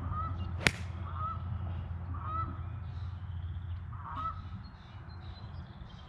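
Geese honking: four or five short calls spread over a few seconds, with a single sharp click about half a second in, over a steady low rumble.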